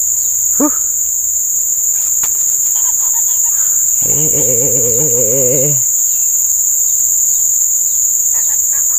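Loud, steady high-pitched drone of an insect chorus in the riverside trees. About halfway through, a man hums briefly, in a wavering pitch.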